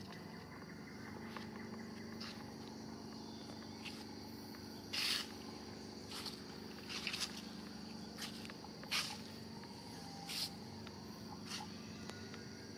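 Steady high-pitched insect chirring, with about six short, sharp rustling bursts scattered through the middle and later part; the loudest come about five and nine seconds in.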